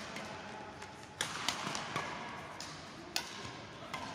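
Badminton rackets striking a shuttlecock during a doubles rally: a few sharp, irregularly spaced cracks, the strongest about a second in, half a second later, and about three seconds in. They echo in a large sports hall.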